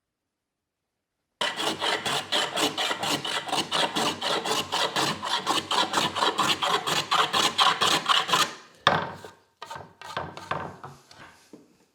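A hand tool worked back and forth on oak in quick even strokes, about four a second, starting suddenly and ending in a few slower, fainter strokes.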